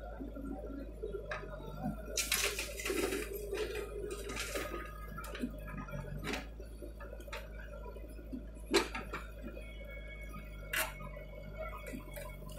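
JCB 3DX backhoe loader's diesel engine running low and steady under its work while the backhoe bucket tips soil into a tractor trolley. Rushes of falling soil come about two seconds in and again near four and a half seconds, with scattered sharp knocks.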